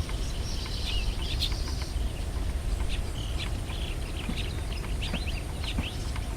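Small songbirds chirping and twittering: many quick, short chirps, with a couple of brief buzzy trills, over a steady low rumble of background noise.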